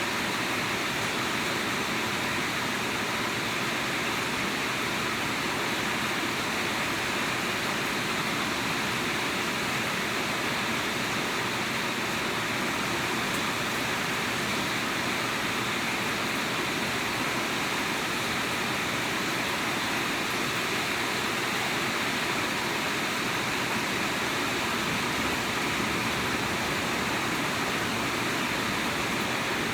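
Steady rainfall: an even, unbroken hiss with no single drops or gusts standing out.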